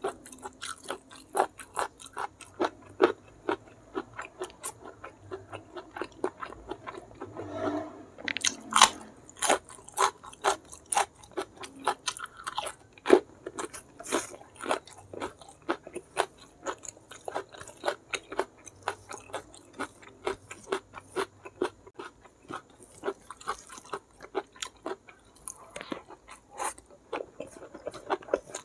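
Close-miked chewing and crunching of a hand-fed mouthful of rice with blood-clam sambal and petai beans: a steady run of crisp clicks, several a second.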